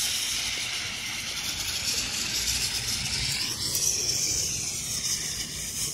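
Ground fountain firework burning with a steady shower of sparks, making a continuous high hiss whose pitch sinks slightly a little past halfway.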